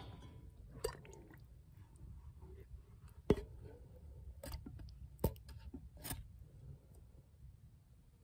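Canned tamales being tipped out of a tin can into a small cast iron skillet: faint squishing with about five sharp taps of the can, the loudest about three seconds in.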